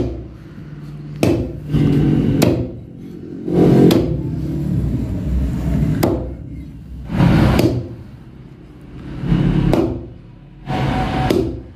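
Meat cleaver chopping raw chicken on a wooden log chopping block: a series of heavy chops with thuds, irregularly spaced every second or two, some coming in quick pairs.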